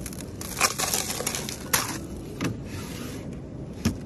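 Sealed plastic cups of ice knocking and crackling against each other as one is taken from a freezer, with a cluster of crackly clicks about a second in and single sharp clicks near two seconds and near the end.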